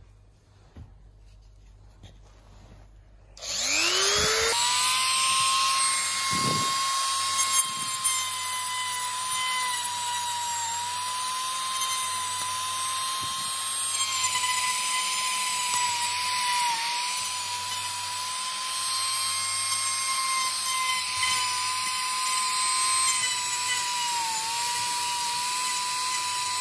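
Handheld rotary tool switched on about three and a half seconds in, spinning up with a rising whine and then running at a steady high whine, its pitch dipping slightly now and then as the bit grinds away the helmet's foam liner to deepen the speaker pocket.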